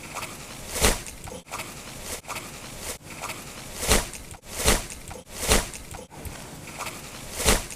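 Footsteps in deep snow: about five short, unevenly spaced steps.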